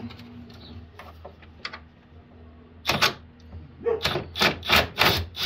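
Mechanic's hand tools clicking and clattering on the car: a few faint clicks, one sharp burst about three seconds in, then four more bursts in quick succession near the end.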